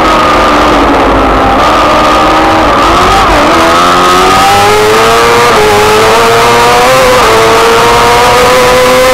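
Racing sidecar's four-stroke engine heard onboard at racing speed: revs falling into a bend, a sharp dip about three seconds in, then climbing hard through the gears with quick upshift drops about five and a half and seven seconds in. A steady rush of wind and wet road noise runs under it.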